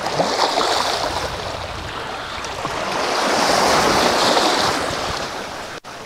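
Small sea waves washing in among the rocks and stones of a boulder shore. The wash swells to its loudest a few seconds in, then draws back.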